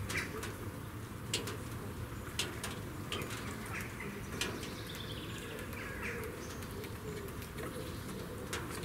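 Small birds chirping in the background over a steady low noise bed, with a few sharp ticks scattered through.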